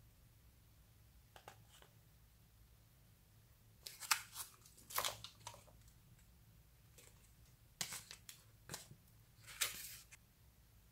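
Small plastic pieces and a plastic tray handled over slime: short clicks and crackly rustles, a faint pair about a second and a half in, then two busier clusters around four seconds in and near the end.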